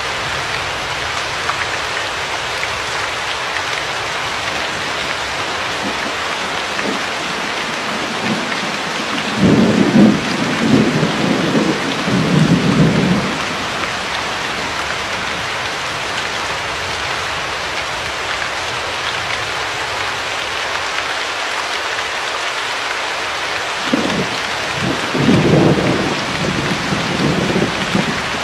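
Steady rain with two rolls of thunder: one about ten seconds in, rumbling for three to four seconds, and another near the end.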